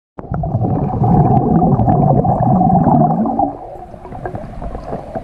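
Intro sound effect for a production title card: a loud swell of rumbling, whooshing noise with a held mid-pitched tone, starting suddenly. It dies down to a lower level about three and a half seconds in.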